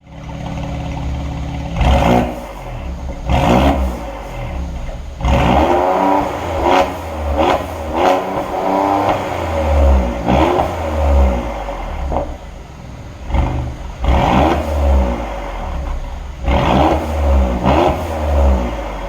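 Mercedes-AMG GLE 43's twin-turbo V6 being revved again and again in short blips, the engine note rising sharply and falling back to idle between each one.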